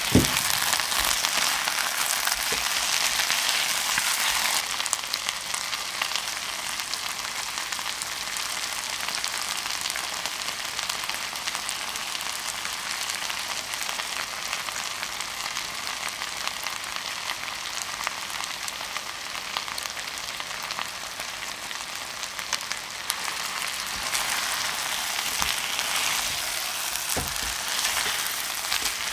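Chicken drumsticks frying in hot oil in a pan: a continuous sizzle that is louder for the first few seconds, then settles to a steady level. Near the end a spatula pushes the pieces around, with a couple of light knocks against the pan.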